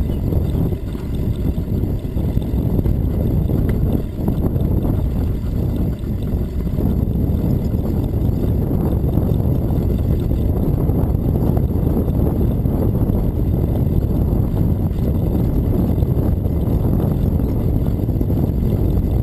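Steady low rumble of wind buffeting the microphone while cycling, mixed with bicycle tyres rolling on pavement.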